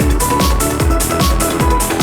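Electronic dance music with a fast, steady kick-drum beat and synth notes over it.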